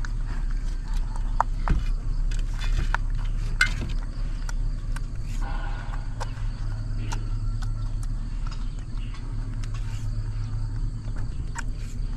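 Baby macaque eating watermelon from a metal tray: wet chewing and lip-smacking with scattered sharp clicks, over a steady low hum.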